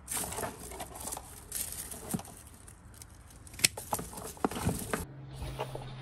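Rustling and crackling of roots and bark debris against a plastic pot as a root-bound reed epidendrum orchid is worked free, with a few sharp clicks. About five seconds in the sound cuts abruptly to a different, softer rustle.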